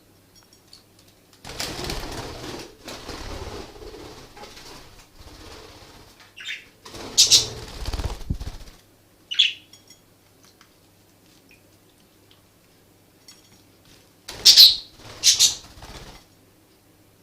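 Budgies bathing, flapping their wings and splashing in water in several bursts of a second or more, with a few short, sharp high chirps.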